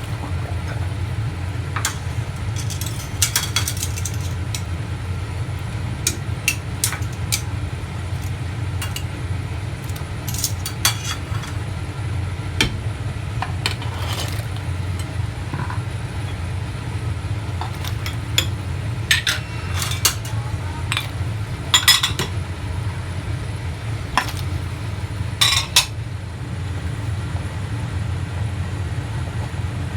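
Metal utensils clinking and tapping against a cooking pot and dishes in scattered sharp strikes, most often in the second half, over a steady low rumble.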